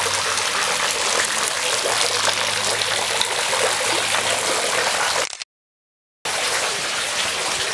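Steady splashing and running of water pouring into a swimming pool, with a faint low hum under it for the first few seconds. The sound cuts out completely for about a second just after five seconds in, then the water sound resumes.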